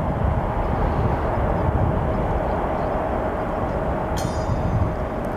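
Jet engines of a Boeing 787 at takeoff power as the airliner climbs out, a steady deep rumble with a faint steady whine in it. A brief high chirp sounds about four seconds in.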